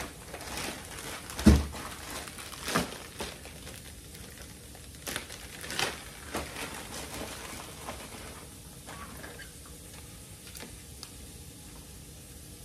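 Plastic bag of baby carrots crinkling as it is picked up and opened, with several knocks of things being handled on the counter, the loudest a heavy thump about a second and a half in. Near the end a few light knife taps on the plastic cutting board.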